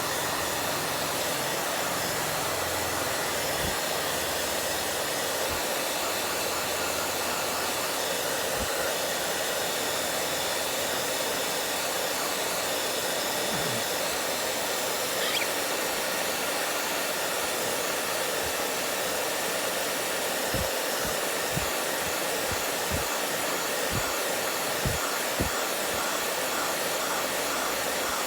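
Handheld hair dryer blowing steadily, with a few short, soft knocks in the last third.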